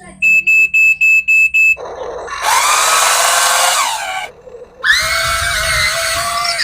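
Six quick high electronic beeps, then two loud pitched electronic sounds that swoop up and hold, with a short break between them.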